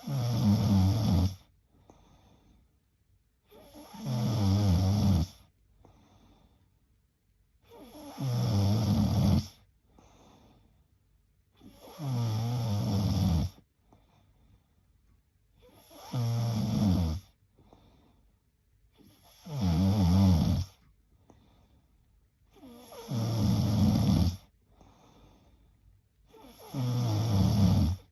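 A woman snoring in her sleep: a steady rhythm of eight loud snores, one about every four seconds, each lasting about a second and a half, with faint breaths between.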